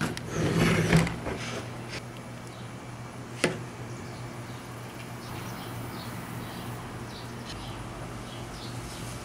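Small handling noises at a workbench while two-part epoxy is dabbed into a crack in a plastic taillight lens: a brief rustle and clatter near the start, then one sharp tap about three and a half seconds in. Under them runs a steady low hum, with faint chirps near the end.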